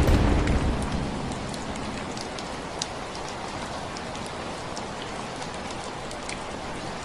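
Steady rainfall with scattered distinct drips, as a low rumble of thunder dies away in the first second.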